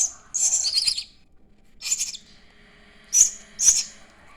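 Starling chicks giving harsh, hissing begging calls: one longer call near the start, then three short ones spaced out over the next few seconds.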